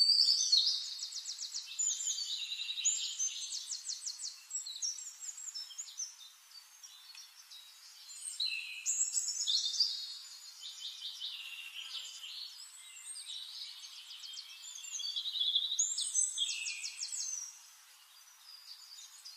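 A songbird singing long, high, rapidly trilled songs in three main bouts: one at the start, one about 8 seconds in and one about 13 seconds in.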